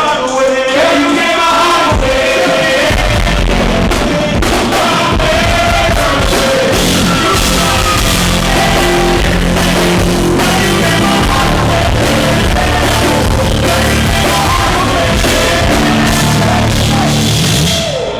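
Live band music with a singing voice, played loud through a club sound system. Bass and drums come in about two seconds in, and the music stops at the very end. The sound is rough, from a microphone blown out by the venue's sound system.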